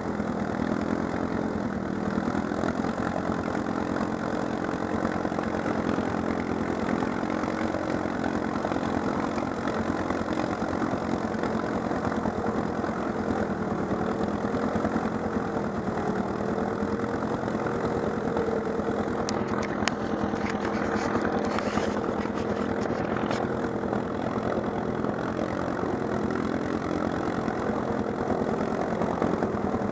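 ATV engine idling steadily at close range, its pitch wavering slightly now and then, with a few light clicks about two-thirds of the way through.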